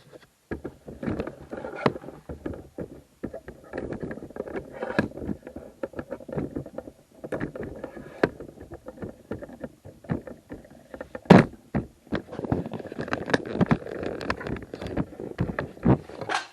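Hands working on a push mower: irregular rustling, scraping and clattering with many small knocks, and one sharp knock about eleven seconds in.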